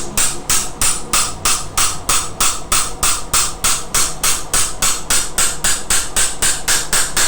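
Hammer tapping steadily, about four blows a second, to seat a part of a brush cutter's clutch assembly held in a vise.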